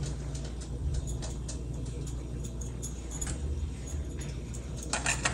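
Light taps and clinks of a metal spoon scraping and placing potato filling onto rolled dough, with a few sharper clicks near the end, over a steady low hum.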